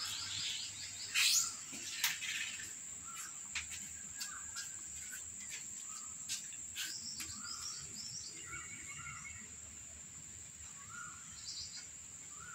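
Faint background of birds chirping and a steady high-pitched insect drone, with a few sharp clicks and short chirps that repeat about once a second.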